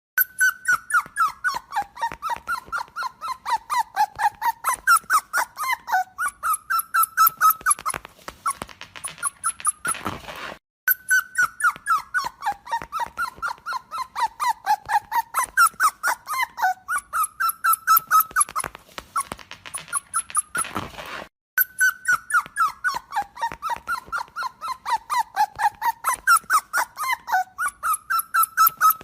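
A dog yipping in quick, high squeaky calls, about five a second, each dipping in pitch. The same ten-second stretch plays three times, with short breaks between.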